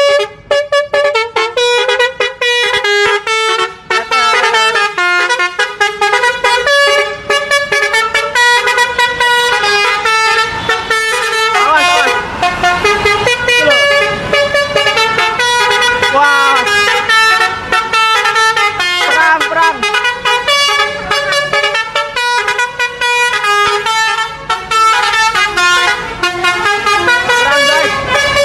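Bus 'telolet' basuri horn, a multi-note musical air horn, playing a fast melody of held notes that step up and down with short breaks between them.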